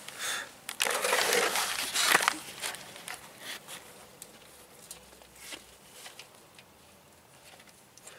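Handling noise while the oil drain plug on a Ural motorcycle's engine sump is turned out by hand. First a crinkling rustle lasts about a second and a half, then a few faint scattered clicks and taps follow.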